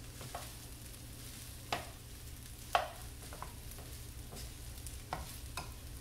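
Garlic fried rice with bacon sizzling in a nonstick skillet while it is stirred with a slotted spatula and a wooden spoon; several sharp taps and scrapes of the utensils against the pan, the loudest nearly three seconds in.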